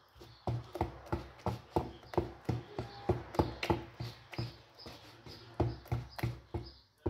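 Small metal whisk beating cake batter by hand in a bowl: a rhythmic clicking and tapping, about three strokes a second, as the wires knock against the bowl through the wet batter.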